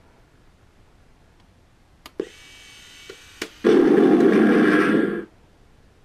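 An RC tank's MrRCSound V4.1 sound unit plays a recording of a real M41 Walker Bulldog's cannon through its small onboard speaker: a loud blast about a second and a half long that cuts off suddenly. It comes after a couple of clicks and a quieter stretch of noise.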